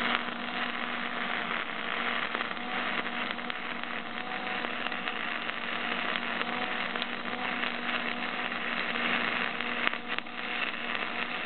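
Electric arc welding: the arc crackles and hisses steadily as a continuous bead is laid, over a steady low hum.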